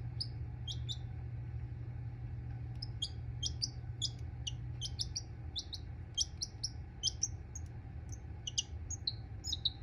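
Baby chick peeping: short, high peeps in irregular runs, coming more often after the first few seconds, over a steady low hum.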